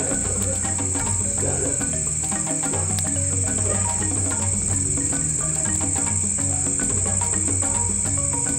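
Crickets chirping in a steady high-pitched trill, over quiet background music of low, stepping notes.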